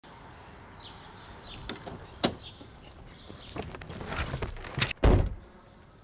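A door latch clicks, then there is shuffling movement and the door shuts with a heavy thud about five seconds in. A faint bird chirp sounds near the start.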